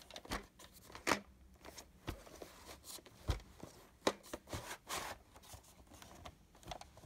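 A VHS cassette and its cardboard sleeve being handled and turned over. Irregular plastic clicks and knocks come between rustling of the sleeve.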